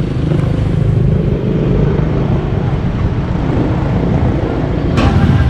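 Small motor scooter engine running at low speed as the scooter rolls slowly, a steady pulsing rumble. A single sharp knock about five seconds in.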